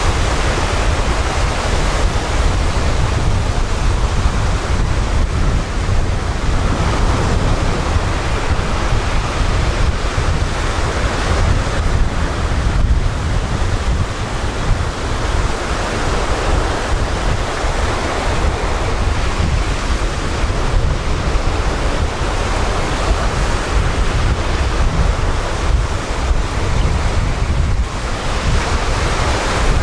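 Small breakers crashing and foaming up a pebbly sea beach, the wash swelling and ebbing every few seconds, with wind rumbling on the microphone.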